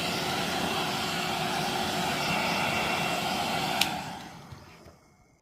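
Hair dryer blowing steadily with a faint hum, heating the phone's back cover to set its adhesive; about four seconds in there is a click and the dryer winds down and stops.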